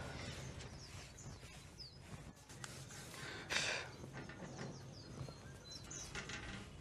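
Quiet background ambience with small birds chirping now and then, and one short rustling hiss about three and a half seconds in.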